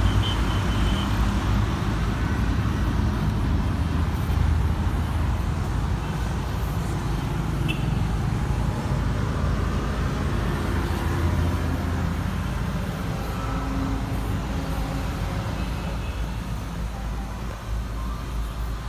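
Steady low motor-vehicle engine rumble with road traffic noise.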